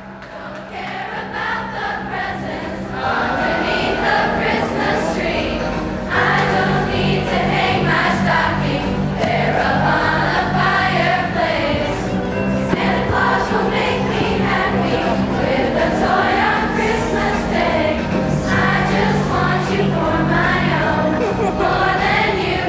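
A large mixed choir singing together over instrumental accompaniment, starting softly and growing louder over the first few seconds, then holding steady.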